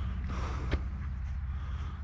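Steady low rumble of outdoor background noise, with a single faint click about three-quarters of a second in.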